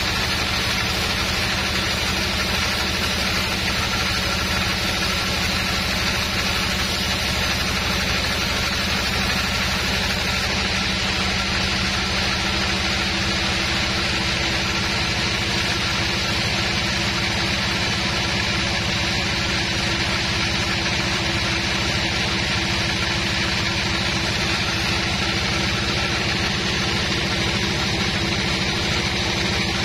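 Large sawmill band saw running and cutting lengthwise through a big hardwood log: a loud, steady machine drone with a low hum and a constant hiss of the blade in the wood, without a break.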